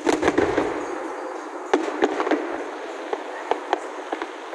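Aerial fireworks bursting: a quick cluster of bangs and crackles in the first second, then single sharp reports scattered through the rest.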